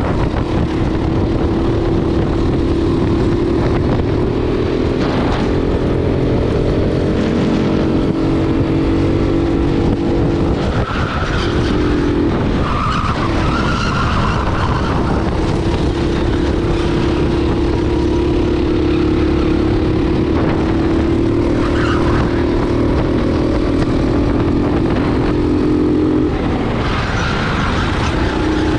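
Racing kart engine heard onboard at speed, its note held high and steady, dropping as it slows for a corner about eleven seconds in and again near the end, then climbing back up.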